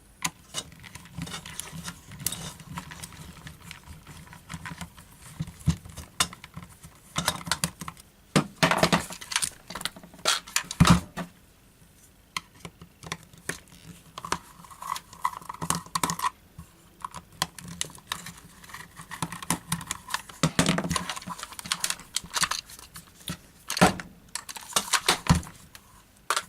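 Screws being undone with a screwdriver and the plastic drill casing being handled: irregular clicks, taps and small rattles, with a few louder knocks.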